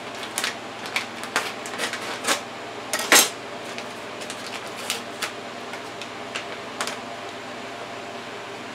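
Paper gravy-mix packet crinkling as it is cut open and handled, with light clicks and clinks of utensils on the counter. Irregular sharp crackles, the loudest about three seconds in, thinning out after about seven seconds.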